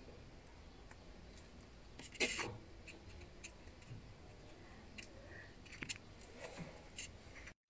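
Faint background hum with scattered small clicks and a short scrape about two seconds in, then a few more light ticks; the sound cuts out suddenly near the end.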